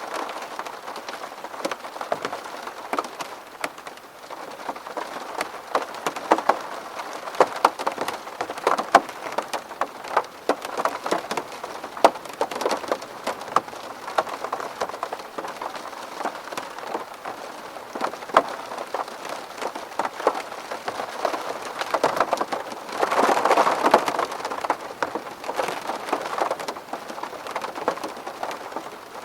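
Steady rain falling on a window, many separate drops striking the glass, with a louder, heavier spell about 23 seconds in.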